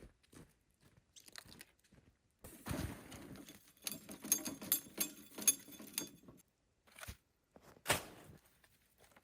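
Rustling with a run of clicks and knocks from about two and a half to six and a half seconds in, then a single sharp knock near eight seconds.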